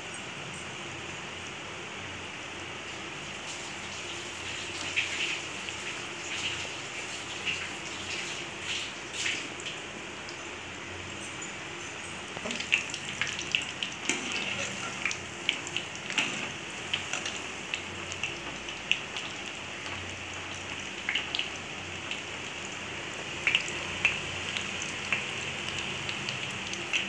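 Battered baby corn deep-frying in hot oil: a steady sizzle with frequent sharp crackles and pops scattered through it.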